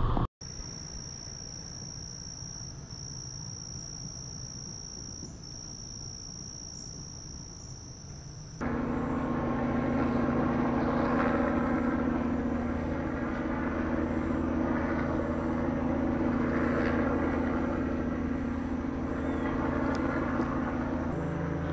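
Outdoor field recording: faint background noise with a steady high-pitched whine, then from about a third of the way in a louder steady low motor hum with several held tones, and faint chirps above it.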